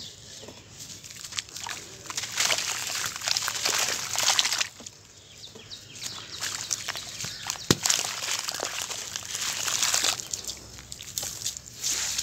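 Wet sand-cement paste being squeezed and crumbled by hand into a bowl of cement water: gritty crunching and crackling mixed with sloshing, dripping and splashing. It comes in two busy spells with a short lull between, and one sharp tap partway through the second spell.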